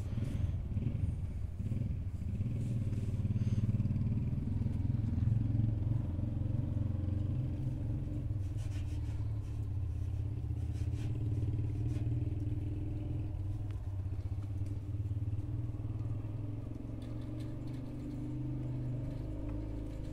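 An engine running steadily, a low hum that shifts in pitch a little past halfway and again near the end.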